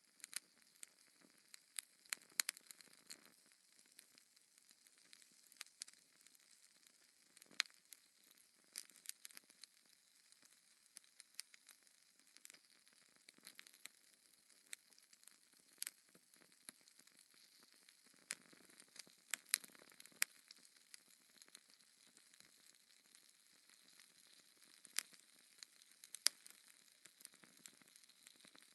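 Fire in a fireplace crackling: irregular sharp pops and snaps, sometimes several close together, over a faint steady hiss.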